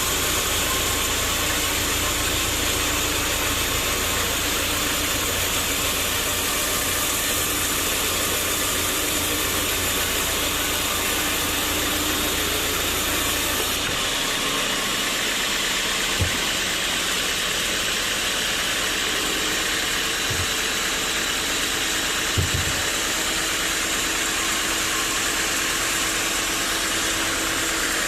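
Sawmill machinery running steadily with a loud, even noise. The deep rumble drops away about halfway through, and a few faint knocks follow.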